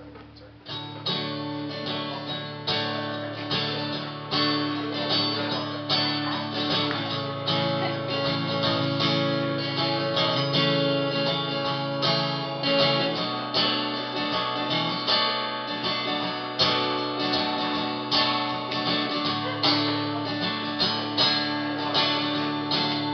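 Live band playing an instrumental song intro led by a strummed acoustic guitar, with evenly repeated strums over sustained lower notes, starting about a second in.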